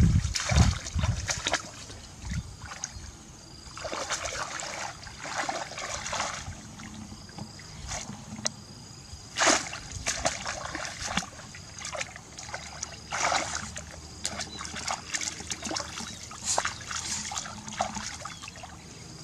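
Shallow water splashing and sloshing in irregular bursts, as hands work through it to catch fish.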